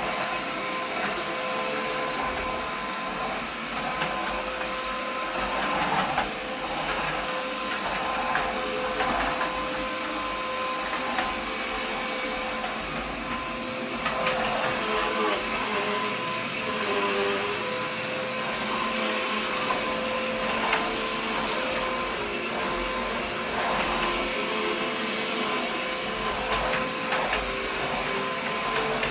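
Dirt Devil vacuum cleaner running steadily, its motor giving a constant whine, with brief scraping changes as it is pushed over the floor.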